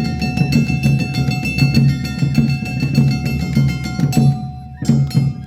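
Awa Odori festival band playing: fast, dense beating of drums and a clanging metal hand gong, with a flute holding a steady high note over them. The music stops about four and a half seconds in.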